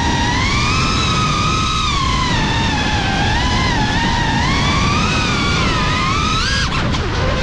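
GEPRC CineLog35 cinewhoop's brushless motors and propellers whining over a heavy rush of prop wash and wind. The pitch rises and falls continuously with the throttle. Near the end it drops sharply, then climbs steeply again.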